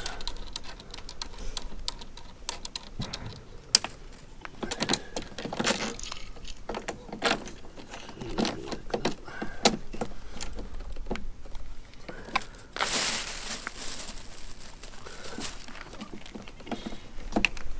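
Scattered clicks, knocks and rattles of plastic and metal parts being handled and fitted while a battery lawn mower is put together, with a short rustle about 13 seconds in.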